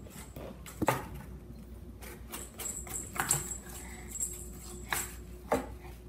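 Four or so light, sharp taps and knocks on a tile floor and cardboard box as a cat plays at a feather toy, with a thin high whine in the middle stretch.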